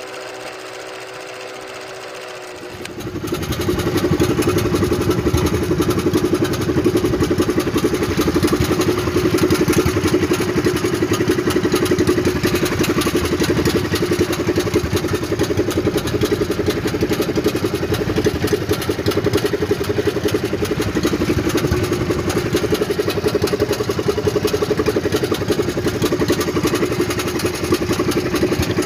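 Small fishing boat's engine running steadily under way, starting loud about three seconds in. Before it comes a quieter steady tone from the countdown transition.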